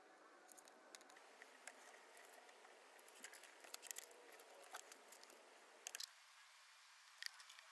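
Near silence with scattered small clicks and taps of hands handling a wooden lure body and small tools on a cutting mat, busiest in the middle.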